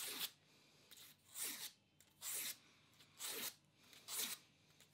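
A strip of sandpaper pulled by hand across the steel head of a ball peen hammer, sanding it smooth: five short rasping strokes, about one a second.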